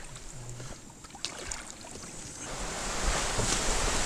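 A canoe being worked through a shallow bog: a few light paddle knocks, then from about halfway a rushing, sloshing noise that grows louder.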